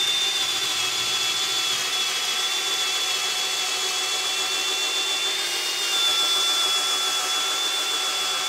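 HART brushless half-inch drill driver in low gear (speed 1) boring a half-inch twist bit into a wooden 2x4, its motor running at a steady whine under load. Speed 1 is too slow for the job with the 2 Ah battery. The pitch shifts slightly about six seconds in.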